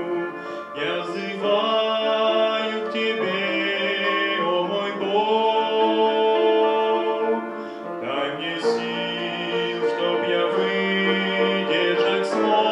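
Male vocal quartet singing a slow Russian Christian hymn in close harmony, long held chords that change every few seconds.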